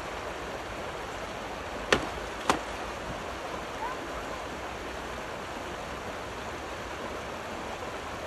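Steady rush of river rapids, broken by two sharp knocks about half a second apart near two seconds in.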